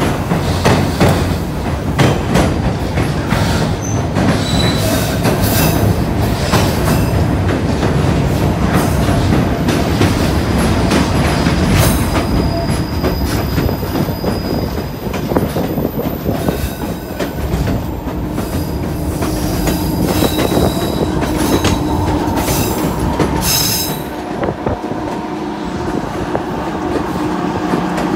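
Narrow-gauge passenger train running, heard from the platform between the coaches: wheels clattering and clicking over the rails, with thin high wheel squeal coming and going on the curves. The sound is loud and continuous.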